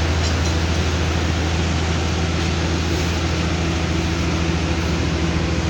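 Diesel engines of asphalt-paving road machinery running steadily: an even, low engine drone with a constant noisy hiss over it.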